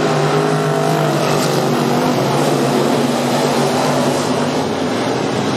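Engines of a pack of dirt-track stock cars racing around the oval: a loud, steady drone, with several engine notes rising and falling as the cars pass.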